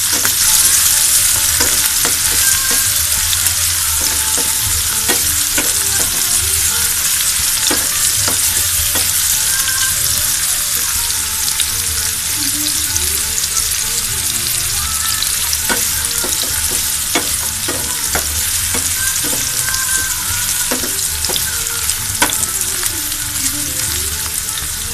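Sliced onions and green chillies sizzling steadily in hot oil in a metal frying pan, being lightly fried while a wooden spatula stirs them, with irregular scrapes and taps of the spatula against the pan.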